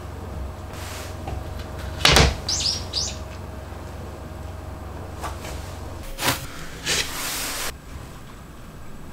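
Plywood strips handled on a cutting mat: a sharp wooden knock about two seconds in, followed by a few short high squeaks, then another knock a little after six seconds and a brief scraping slide just before eight seconds.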